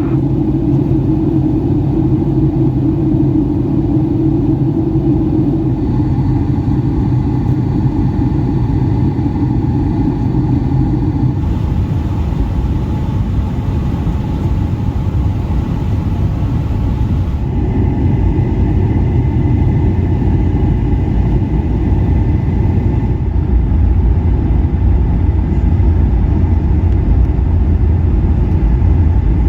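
Steady low rumble of engine and airflow noise inside a Boeing 757-300 airliner cabin during descent. Its higher hiss shifts abruptly a couple of times, and the deep rumble grows somewhat stronger near the end.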